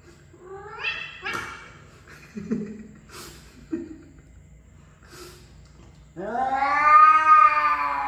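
Two domestic cats yowling at each other in a face-off. There are short rising cries about a second in and a few brief sounds in the middle, then a long, loud yowl near the end that rises and falls in pitch: a warning in a standoff.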